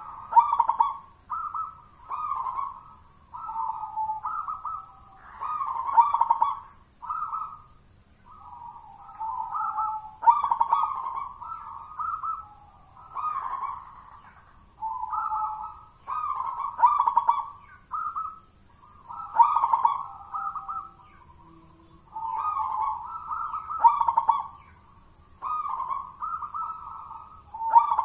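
Zebra dove (perkutut) cooing a long string of short, thick rolling phrases, each about a second long, one after another every second or two.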